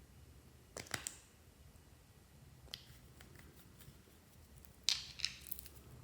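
Glossy slime being worked by hand, giving sticky clicks and little air-bubble pops: a short burst of crackles about a second in, a louder cluster near five seconds, and scattered single clicks between.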